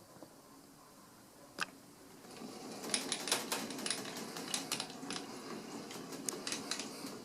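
Light metallic clicking and clinking of steel lathe tooling being handled and adjusted on a quick-change toolpost. There is one sharp click at about one and a half seconds in, then a busy run of irregular small clicks from about three seconds on.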